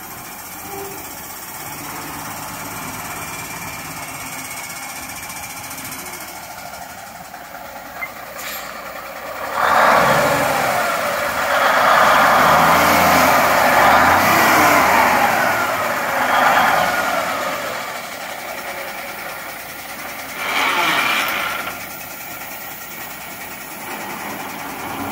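1966 Kenworth tandem-axle dump truck's diesel engine running at idle, swelling louder for about seven seconds in the middle and briefly again near the end.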